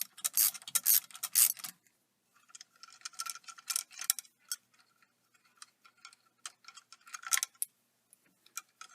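Ratchet wrench clicking in quick runs, in three bursts with short pauses between them, as 7/16 bolts are backed out of a Jeep steering wheel.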